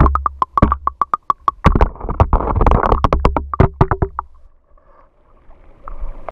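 Background music: a fast, even run of short synthesizer notes at one pitch over low bass, fading out about four seconds in.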